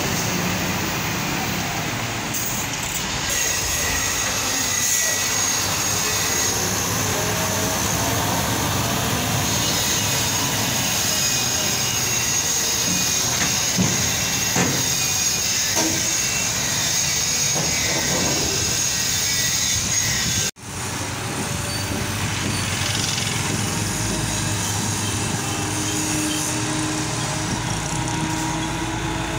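Concrete mixer truck's diesel engine running as it manoeuvres, with a steady high-pitched whine over the engine noise. The sound cuts out for an instant about two-thirds of the way through, then goes on with a lower steady hum.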